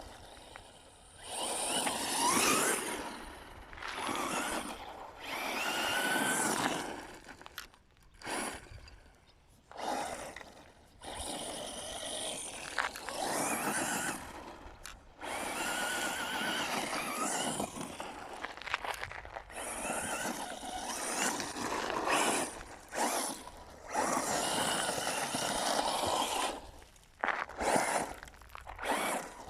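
Electric RC buggy driving in bursts on a dirt track: its motor whines up and down in pitch with the throttle, with tyres scrabbling over dirt and gravel and short pauses between runs.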